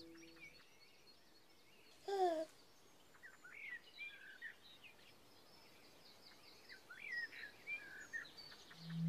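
Faint birdsong, many small chirps and trills, with one short falling baby's coo about two seconds in.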